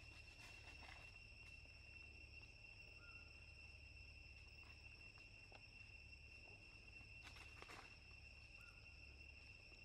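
Near silence with a faint, steady, high-pitched insect drone, like crickets or cicadas, and a few soft clicks about 7 to 8 seconds in.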